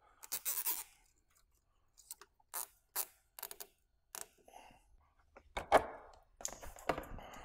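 Handling noises as a fuel filter and check valve are set in place: a scatter of light, irregular clicks, taps and rustles, the loudest a little under six seconds in.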